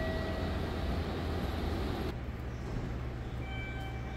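Railway station platform ambience: a steady low hum and noise, which changes abruptly about two seconds in. A short electronic tone sounds at the start, and a few brief beeping tones come near the end.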